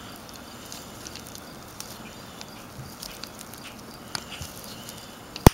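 Cover of a rebuilt Model A Ford wiper motor being pressed onto the metal housing by hand: faint scattered clicks and rubbing, then one sharp snap near the end as the cover snaps into place.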